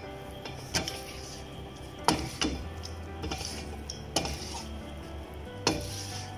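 Spatula stirring cooked rice in a nonstick pan, scraping with several sharp knocks against the pan at irregular intervals.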